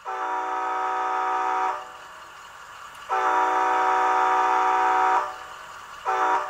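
Model locomotive's digital sound decoder sounding the train horn, a steady chord played through the N scale locomotive's small onboard speaker. Three blasts: two long ones, then a short one starting near the end.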